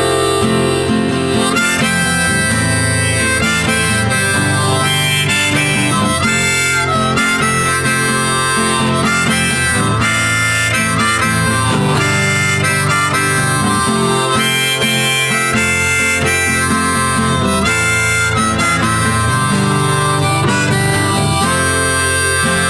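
Instrumental break of a song: a harmonica solo over guitar accompaniment.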